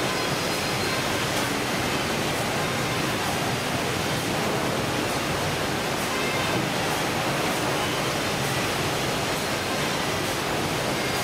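Steady rushing noise of the fish-processing line on a fishing vessel's factory deck: machinery and running water together, unchanging in level, with a faint tick about once a second.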